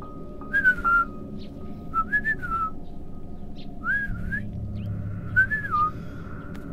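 Short whistled, bird-like calls, each rising and falling, repeated four times about a second and a half apart over soft sustained background music.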